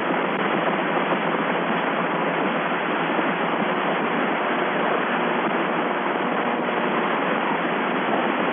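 Steady hiss of radio static on the narrow-band mission voice channel between transmissions, even and unbroken.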